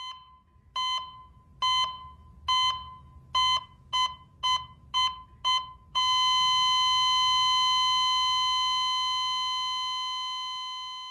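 Electronic beeps, nine in all, speeding up from about one a second to about two a second, then running into one long steady tone that slowly fades out.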